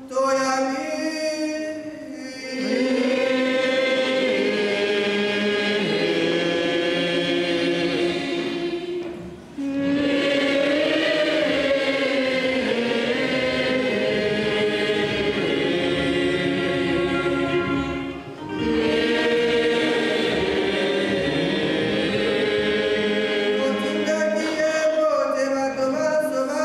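Church choir singing a liturgical chant in long phrases, breaking off briefly twice, about nine and eighteen seconds in.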